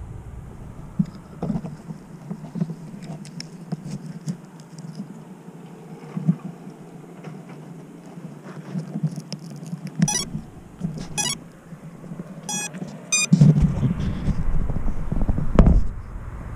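Handling noise on the drone's onboard camera microphone: rubbing, bumps and a few sharp clicks as the quadcopter is held and moved, then a louder rumbling and a hard knock near the end as it is set down on the car. The motors are not running.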